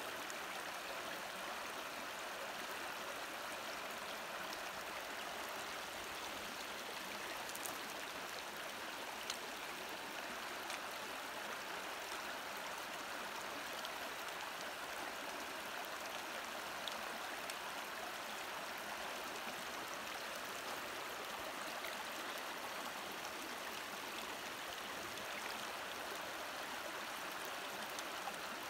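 A shallow, stony river running over rocks and gravel, a steady rushing of water.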